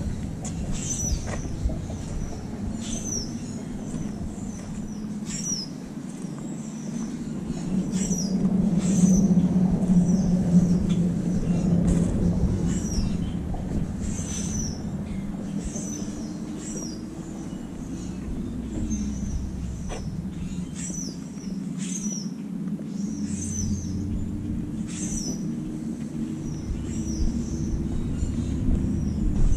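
Birds chirping over and over, short high notes that slide downward about once a second, above a steady low rumble.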